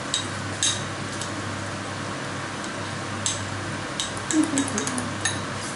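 A utensil clinking against a drinking glass while it beats egg mixture: sharp, irregular clicks, with a quick run of them about four seconds in, over steady background noise.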